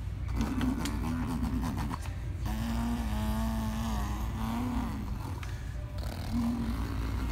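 A boy imitating a gas string trimmer's engine with his voice: a few short sputtering buzzes, then a long steady drone with a wavering pitch about two and a half seconds in, and one more short buzz near the end.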